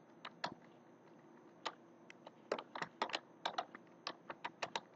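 Typing on a computer keyboard: faint, separate keystrokes, a pause of about a second near the start, then a quicker, irregular run of keys.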